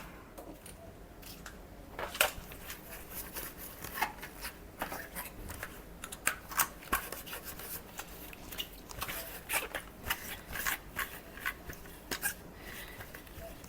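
Damp cloth wiping over the battery section of a Shark cordless stick vacuum: light, irregular rubbing with small clicks and taps as it is handled.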